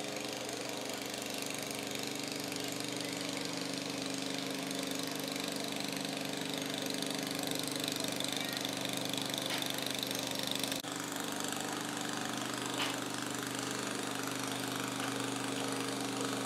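An engine running steadily at constant speed: a low, even drone that does not change pitch.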